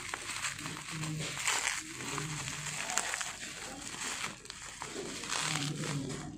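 Plastic bubble wrap crinkling and rustling in irregular bursts as it is handled and pulled open by hand.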